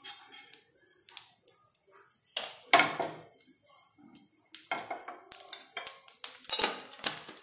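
Mustard seeds popping in hot oil in a pan at the start of tempering: scattered sharp pops and crackles, sparse at first and coming faster toward the end.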